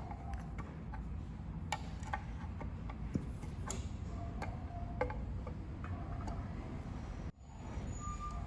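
Scattered light clicks and taps from a metal paint can and its lid being handled, over a low steady background hum; the sound drops out abruptly for a moment about seven seconds in.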